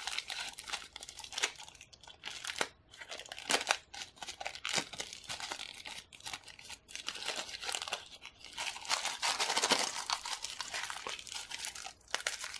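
Thin packaging wrap crinkling and tearing as it is pulled off a phone wall charger by hand, an irregular run of crackles and small clicks.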